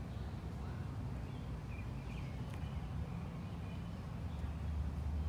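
Outdoor park ambience: a steady low rumble, swelling slightly near the end, with a few faint bird chirps about two seconds in.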